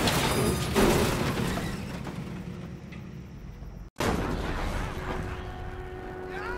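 Film crash sound effects: a heavy vehicle impact about a second in that fades into rumbling noise, then, after an abrupt cut, the crash of an ambulance tipping over and rolling.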